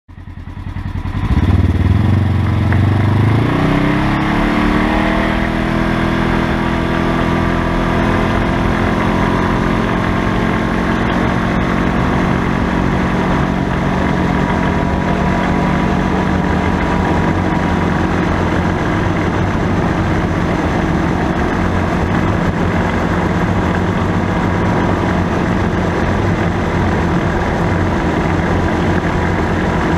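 2017 Polaris General side-by-side pulling away, its engine and driveline rising in pitch over the first few seconds, then running at a steady speed. It is fitted with a CV-joint style prop shaft, and the driveline is much quieter, without the differential noise.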